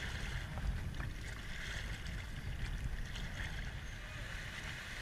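River water rushing steadily around a raft, with a low rumble of wind on the microphone.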